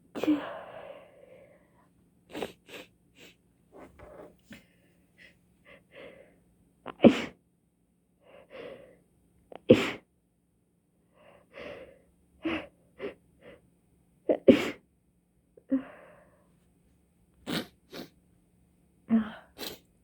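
A person's sneezing fit: a long run of short sneezes one after another, the loudest about 7, 10 and 14 seconds in, with quieter breaths between them. The sneezer puts it down to being stuffy and cold and says they can't stop.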